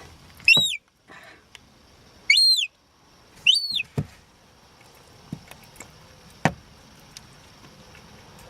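Young gull chick peeping three times, each call a high note that rises then falls. A few soft knocks follow later on.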